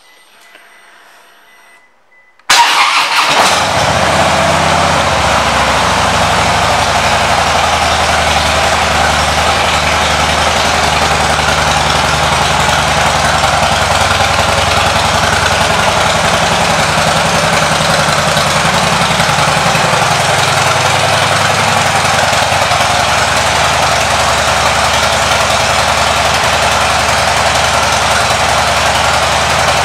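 2014 Harley-Davidson Dyna Super Glide Custom's V-twin engine, fitted with Screaming Eagle pipes, starting suddenly about two and a half seconds in and then idling steadily.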